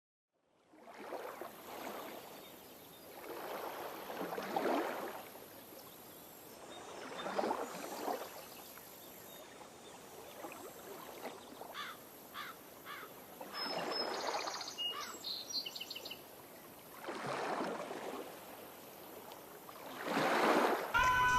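Outdoor ambience: a hiss that swells and fades every few seconds, with a few faint high chirps about two-thirds of the way through.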